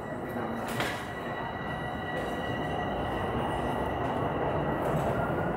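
Toronto subway train moving along the platform, its rumble growing steadily louder, with a thin high whine over it and a sharp click about a second in.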